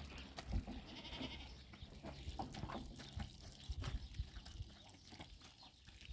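A goat bleating faintly, over light splashing and rubbing as a wet blanket is scrubbed under a trickling garden hose.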